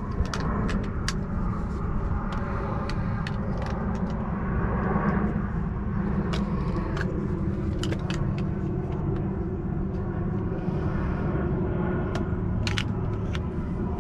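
Plastic-cased circuit breakers clicking and clacking against one another as they are picked out of a plastic bag, with bag rustling between the irregular clicks, over a steady low rumble.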